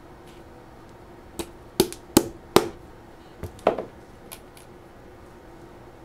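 About six sharp knocks on wood in quick succession, the loudest three evenly spaced near the middle, each with a short ring.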